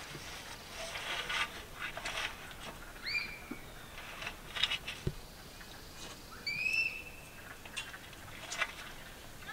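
Two short, high-pitched animal calls about three seconds apart, each rising then holding, over scattered light clicks, with a dull thump between them.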